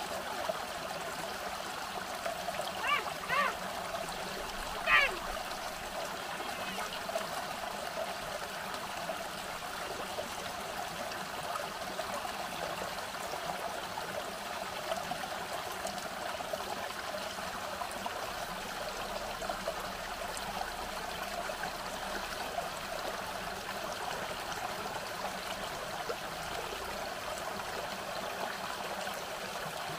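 Small rocky forest stream trickling and splashing over stones, a steady babble of running water. A few brief high chirps stand out about three and five seconds in.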